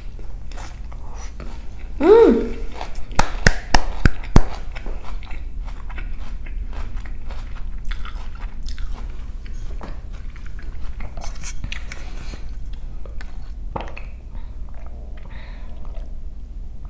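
Close-miked chewing of a crunchy Cobb salad with lettuce, with many short crunches and a few loud, sharp ones about three to four seconds in.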